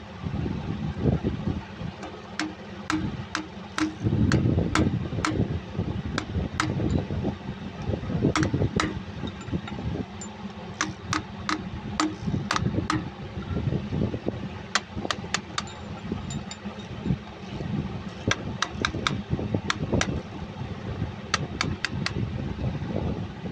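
Sharp metal-on-metal taps, coming irregularly and often in quick clusters, as a drift is tapped around the rim of a Cummins KTA50 front oil seal to seat it in the front cover. A steady low rumble runs underneath.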